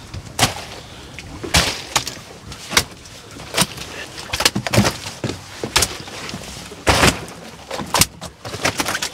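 Dorado (mahi-mahi) being tossed one at a time onto crushed ice in an insulated fish bag: a string of irregular slaps and thuds, about one or two a second.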